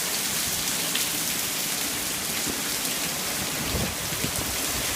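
Heavy rain pouring down in a steady hiss, with a couple of brief low rumbles about four seconds in.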